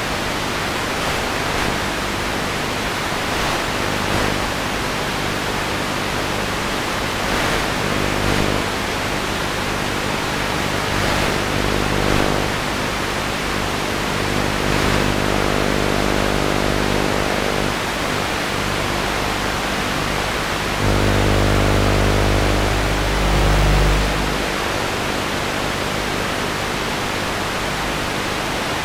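Steady fuzzy static hiss from a spycam's audio, with a low buzzing hum under it that swells for a few seconds about two-thirds of the way through.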